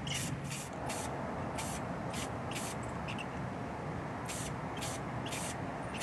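Aerosol spray paint can hissing in about eight short bursts, a few close together, with a pause around three to four seconds in, over a steady low background rumble.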